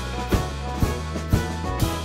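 Band music with drums keeping a steady beat about twice a second under held instrumental notes.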